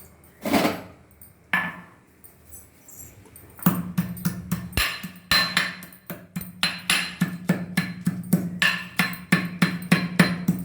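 Whole spices and ginger being pounded with a pestle in a mortar. After a couple of separate knocks, steady strikes at about three a second begin nearly four seconds in, over a low steady hum.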